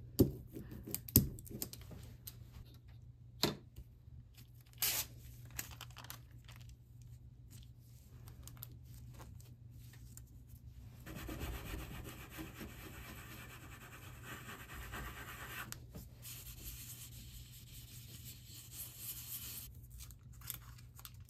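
Paper being rubbed down by hand onto an inked aluminium-foil kitchen lithography plate to transfer the print, a faint steady dry rubbing in two long stretches. A few sharp clicks and knocks come in the first few seconds.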